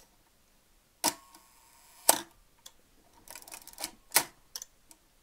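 Mamiya/Sekor 500 DTL SLR's cloth focal-plane shutter fired at a one-second exposure: a sharp click about a second in as it opens, a faint steady hum while it is held open, and a second click a second later as it closes. Then the film advance lever is wound with a run of small ratcheting clicks, ending in a loud click as the shutter cocks.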